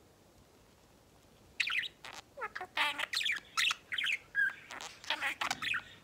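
Budgerigar chattering: a quick run of chirps and warbles starting about a second and a half in, with a short whistle near the end.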